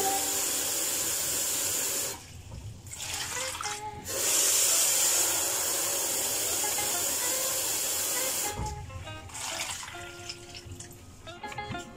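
Kitchen tap running water into a bowl and a pot of dried herbs. The flow stops about two seconds in, comes back on two seconds later and shuts off about eight and a half seconds in, leaving quieter background music.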